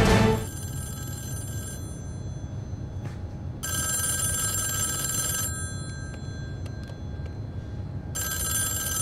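Desk telephone ringing: three rings, each a second and a half to two seconds long, a few seconds apart.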